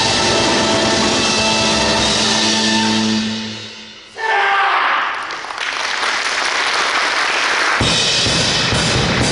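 Marching band's brass and drums holding a chord that fades out, then the audience breaks into applause about four seconds in. Near the end, drums come back in with a sharp hit.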